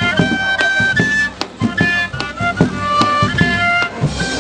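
Cane flute playing a high melody of short held notes over a steady beating drum: traditional Andean fiesta music.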